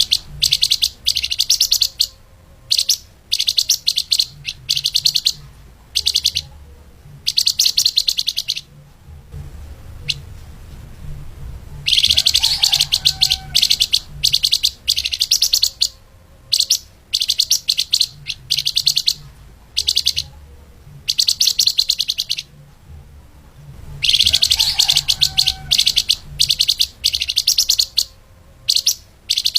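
Flamboyan (lemahan) songbird singing a fast, tightly packed chirping song, the "speed rapat" style used as a training tutor for cage birds. The song comes in rapid high bursts of one to two seconds with short pauses, with longer phrases about twelve and twenty-four seconds in. A low steady hum runs underneath.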